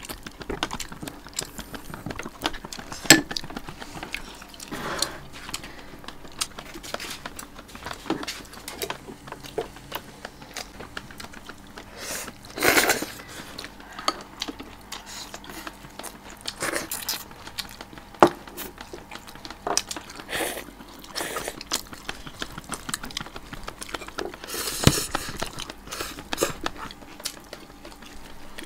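Eating sounds at a meal: chopsticks and spoons clicking against porcelain bowls, with chewing. The clicks are light and scattered, with a few louder noises about halfway through and near the end.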